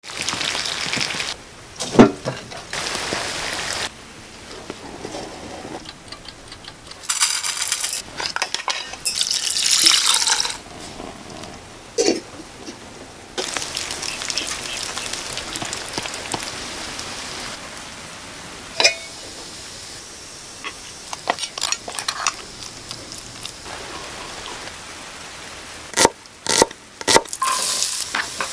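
Rain falling and dripping from a roof's eaves at the start, then a run of short sounds that change every few seconds. It ends with chopped onion frying in an aluminium pan, with a few sharp clicks and a wooden spatula stirring through the sizzle.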